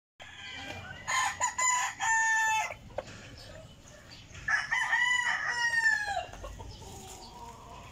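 Rooster crowing twice: a broken, choppy call about a second in, then a longer crow a few seconds later whose pitch drops away at the end.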